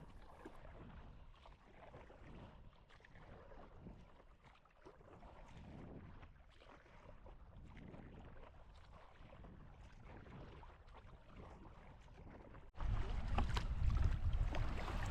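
Kayak paddling into the wind: faint splash of paddle strokes and water against the hull. About 13 seconds in it cuts abruptly to louder wind buffeting the microphone.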